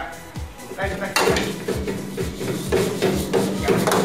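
A metal wok clanking and scraping against the burner as a chef tosses food in it, with repeated sharp knocks. A steady rushing noise starts about a second in and runs under the clanks.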